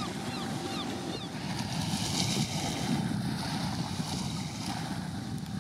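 Wind on the microphone and waves washing at the waterfront: a steady, even rush with its weight in the low end.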